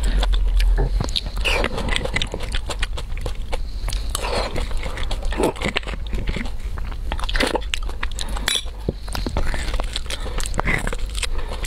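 Close-miked wet mouth sounds of eating spicy beef bone marrow: chewing, smacking and sucking, mixed with many quick clicks as a metal spoon scrapes marrow out of the bone.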